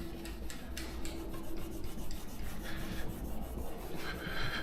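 Quick, repeated rubbing strokes of a cloth scrubbing the car's painted body panel, working off leftover spoiler adhesive softened with Goo Gone.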